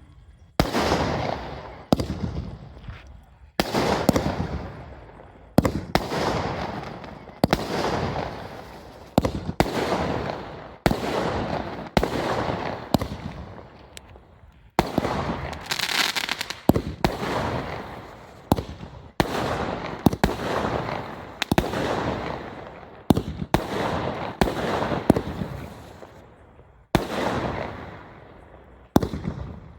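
A Vimalam 'Valentine Spring' 30-shot multi-colour aerial firework cake firing shot after shot, about one every one to two seconds. Each shot is a sharp bang followed by a crackle that fades away, from its crackling effect.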